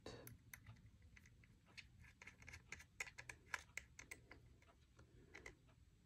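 Faint, irregular ticking and scratching of a precision screwdriver turning a Torx mounting screw into the side of a 2.5-inch SSD by hand.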